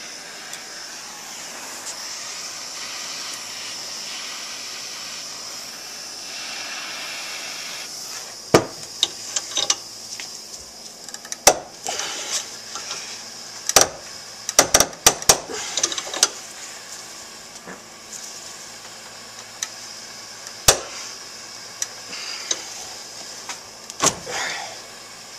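Steady hiss, then a series of sharp metal clanks and clicks, several in quick succession about halfway through. The clanks come from a small bench vise being worked to press the worn bearings out of a motorcycle suspension linkage rocker.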